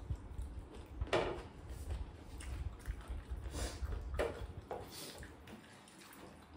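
Close-up eating sounds: chewing and mouth smacks from hand-eating, in a string of short separate bites. The loudest comes about a second in, and they thin out near the end.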